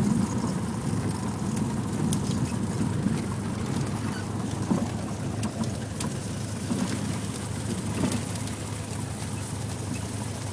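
Single-engine light aircraft's engine and propeller running at low power, heard inside the cabin as a steady low drone, with scattered light clicks and rattles as the plane rolls over the snow-covered runway.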